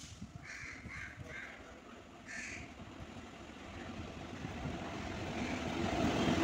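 A crow cawing four times in the first couple of seconds, over the rising rumble of an approaching train hauled by twin Indian Railways electric locomotives, which grows steadily louder toward the end.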